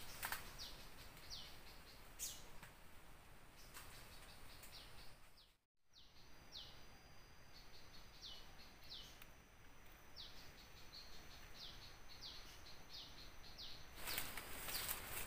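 A bird calling over and over, faintly, with short falling chirps about once or twice a second. The sound drops out completely for a moment about halfway through. After that a thin steady high tone runs along with the chirps, and a louder rustle comes in near the end.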